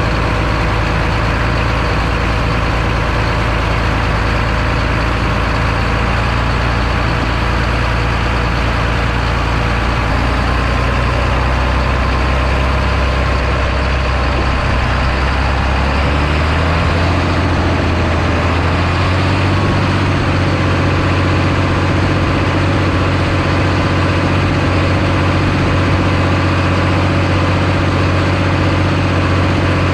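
Farm tractor's diesel engine running steadily, heard close up from the hood. About halfway through, its note steps up as the engine speeds up, then holds steady.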